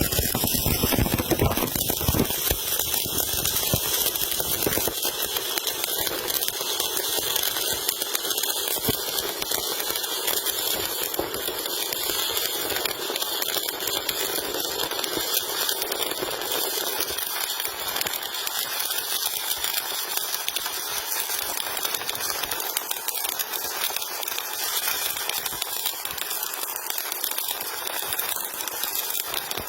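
Electric arc welding: the arc crackling and hissing steadily.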